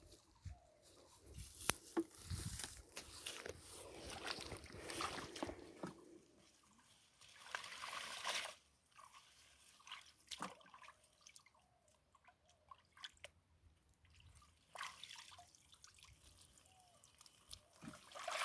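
Water sloshing, trickling and dripping in shallow water, with irregular splashes and scattered sharp knocks.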